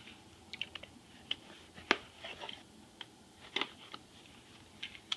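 Folding knife blade slitting the packing tape on a cardboard box, with scattered short scratches and taps of the blade and hands on the cardboard; the sharpest click comes about two seconds in.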